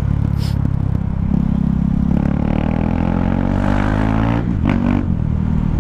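KTM Duke 390's single-cylinder engine through an open exhaust pipe, running as the bike rides. Its pitch rises for a couple of seconds as it accelerates, then drops suddenly about four and a half seconds in.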